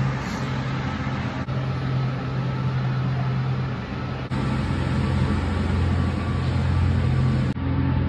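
Steady low machine hum with a noisy rush over it, changing abruptly at cuts about a second and a half, four seconds and seven and a half seconds in.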